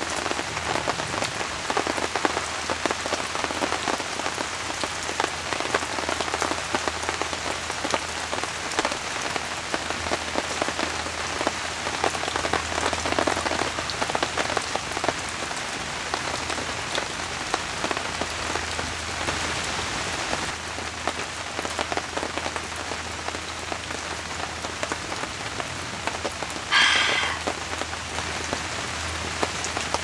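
Steady rain falling on a tent, with many individual drops ticking. Near the end there is one brief, louder sound.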